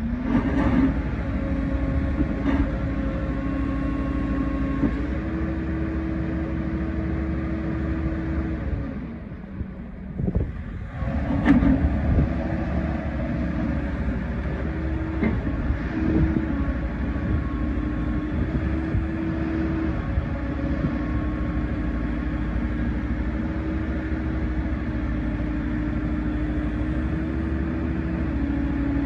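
Volvo ECR88D excavator's diesel engine running while its hydraulics work the boom and arm, the engine note stepping up and down as the hydraulic load comes on and off. A brief lull about ten seconds in ends with a clunk.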